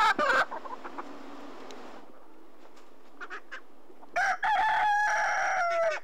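A rooster crowing once, starting about four seconds in: one long call of about two seconds that drops in pitch at the end.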